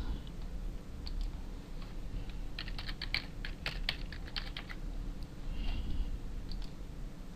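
Computer keyboard typing: a few scattered key clicks, then a quick run of key presses about halfway through, over a low steady hum.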